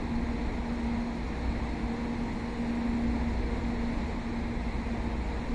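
Distant Shinkansen train moving slowly through its depot, heard as a steady low rumble with a low hum that swells and fades slightly.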